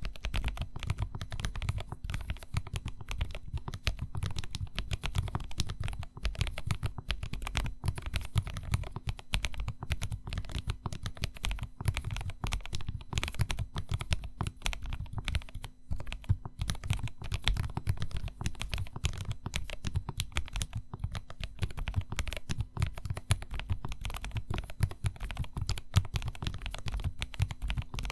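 Continuous fast typing on a self-made mechanical keyboard with Banana Split linear switches lubed with Krytox 205g0, IFK 4800K keycaps, and an acrylic case stack-mounted on poron sheets. The keystrokes clatter densely with a deep low end and brief lulls about six and sixteen seconds in.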